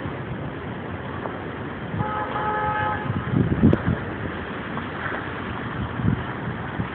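A vehicle horn sounds once, a steady tone lasting just over a second, over continuous street noise. A few low thumps follow shortly after.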